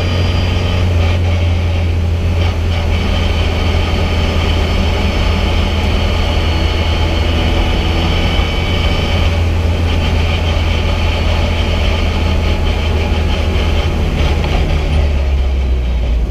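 VW Fun Cup race car engine running at low speed, heard from inside the cockpit as the car rolls slowly down the pit lane: a steady low drone with a thin high whine over it. The engine note drops a little near the end.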